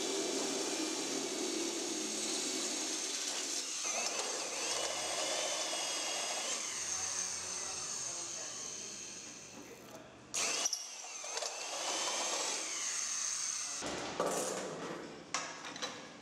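Corded electric hand drill boring out holes in a steel plate, its motor whining with a pitch that wavers as the bit bites and eases. The drilling stops about two-thirds of the way through, followed by a loud sharp knock and a few more sharp knocks near the end.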